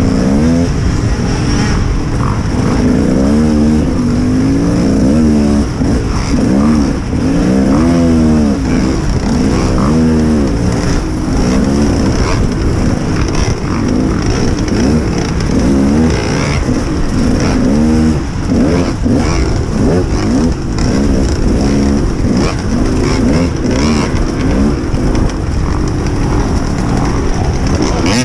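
Motocross bike engine racing, revving up and down again and again as the throttle opens and closes, its pitch rising and falling every second or two.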